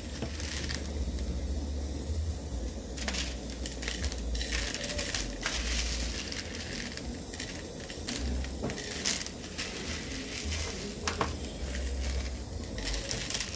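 Bialetti Moka Alpina stovetop moka pot brewing over a gas flame, its coffee flowing up the spout and bubbling with a steady crackling hiss and many small pops. Gusting wind rumbles on the microphone.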